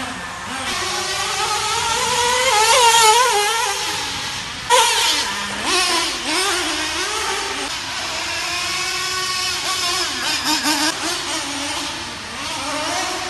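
Traxxas Nitro Slash's 3.3 nitro glow engine revving up and down as the truck drives, its pitch rising and falling. A sudden louder burst of throttle comes about a third of the way in.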